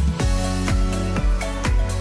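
Background electronic music with a steady beat and sustained synth chords.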